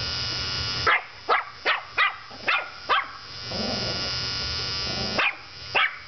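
An electric beard trimmer buzzes and cuts out about a second in. A Yorkshire terrier then yaps six times in quick succession. The buzz returns briefly, and the terrier yaps twice more near the end.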